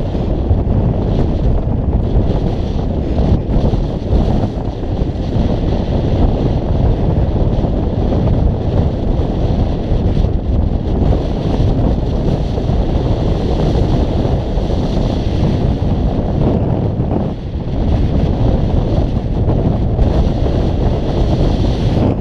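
Wind buffeting the camera's microphone: a loud, steady low rush with a brief dip about seventeen seconds in.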